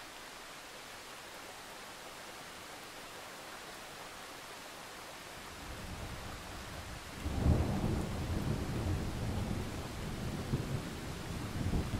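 A low, uneven rumble over a steady faint hiss. It starts about halfway through, is loudest about seven and a half seconds in, then keeps rumbling with smaller swells.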